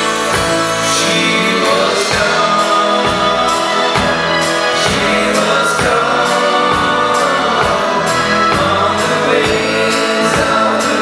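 Live pop band music: several voices singing together in harmony over a steady drum beat and backing instruments.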